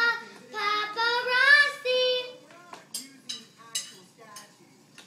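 Young girls singing a song unaccompanied, with long held notes, stopping about halfway through; after that only a few light taps and clicks.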